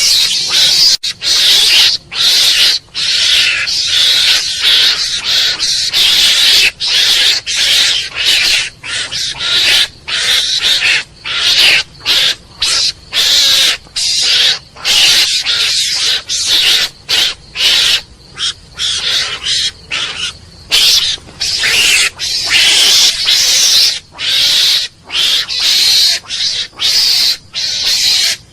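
A mongoose calling: a long run of loud, harsh, hiss-like calls in quick succession, broken by brief pauses.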